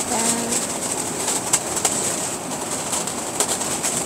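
Strong coastal gale buffeting a one-touch tent: a steady rush of wind with the fabric flapping in frequent sharp snaps, and a brief low whine near the start.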